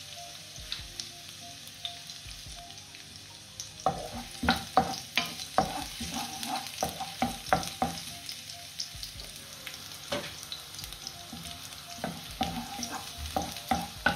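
Sliced garlic sizzling in hot rapeseed oil in a non-stick wok. From about four seconds in, a wooden spoon stirs it, clicking and scraping against the pan in quick runs, with a short pause in the middle.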